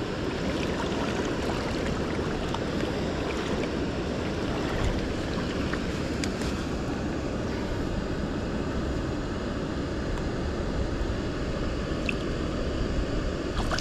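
Steady rushing noise, even in level throughout, with a few faint clicks.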